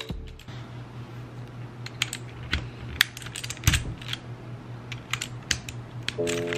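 Scattered sharp plastic clicks and clacks of a mechanical keyboard with blue switches as keycaps and switches are pulled out by hand, over a low steady hum. Music comes back in near the end.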